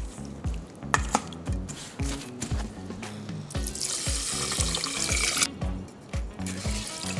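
Water poured from a glass measuring jug onto rice in a rice cooker's inner pot, a splashing hiss lasting about two seconds in the middle. Before it, a spoon clicks and scrapes in a stainless steel mixing bowl; background music with a steady beat throughout.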